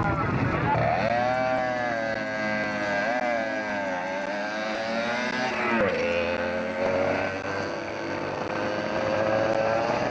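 Competition car engine running hard, its pitch rising and falling with gear changes and throttle, with a sharp drop about six seconds in before it settles to a steadier note.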